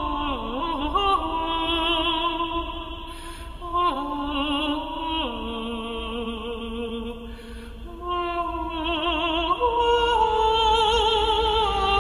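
Music: operatic singing in long held notes with a heavy vibrato, the pitch stepping to a new note every few seconds, with brief pauses between phrases.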